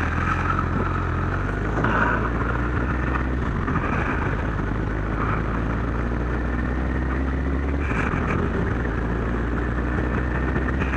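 Kawasaki GPZ1100's inline-four engine running steadily under way, heard from the moving bike with road noise.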